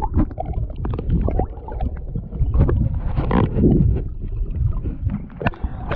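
Water splashing and sloshing close to the microphone as a person swims, with uneven strokes and gurgles.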